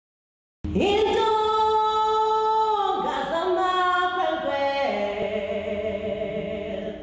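Unaccompanied singing in a woman's voice, holding long notes that shift to a new pitch a few times, starting just after the opening silence.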